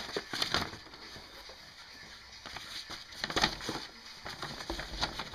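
Rustling and crinkling of plastic and paper packaging being handled, with a few sharp taps at the start and a louder burst of rustling about three seconds in.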